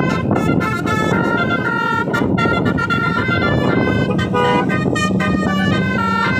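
Tour bus 'telolet basuri' multi-tone horn playing a tooting tune, its notes changing every few tenths of a second, over a steady noisy background.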